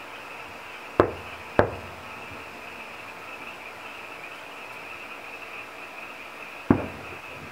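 Fireworks bursting: two bangs about half a second apart near the start and a third near the end, each trailing off briefly.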